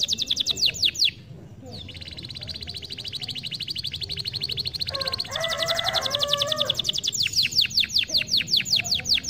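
Domestic canary singing in tours of fast repeated high notes. There is a short break about a second in, then an even, rapid trill, a brief lower warbled phrase, and fast repeated downward-sweeping notes again near the end.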